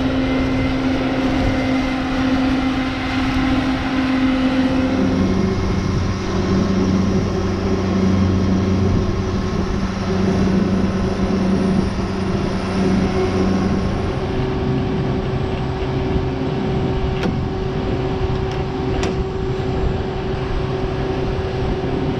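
Pickup truck engine running steadily under way, its pitch dropping about five seconds in and changing again around fourteen seconds. A few sharp clicks near the end.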